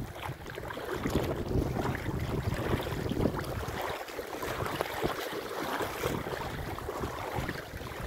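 Shallow mountain river flowing over a stony bed, with water babbling and lapping close to the microphone. Wind rumbles on the microphone, easing off briefly about four seconds in.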